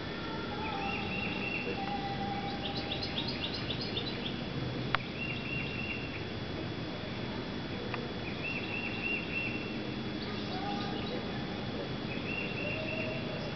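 Birds calling over steady outdoor background noise: a short, rapid run of notes repeated every three to four seconds, with a quicker, higher run of notes about three seconds in. A single sharp click about five seconds in.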